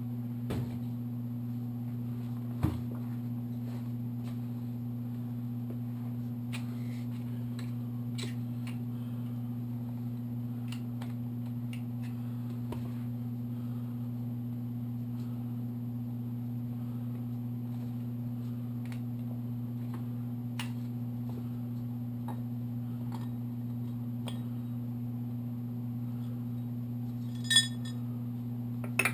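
Light metal clicks and clinks of tools and clutch parts being handled on an engine's clutch side, over a steady low hum. There is one sharper knock a few seconds in, and near the end a metal part rings out bright as it is set down.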